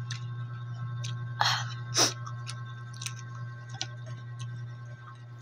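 Close-miked chewing of mussels and rice, with wet mouth smacks and small scattered clicks; two louder smacks come about 1.5 and 2 seconds in. A steady low hum runs underneath.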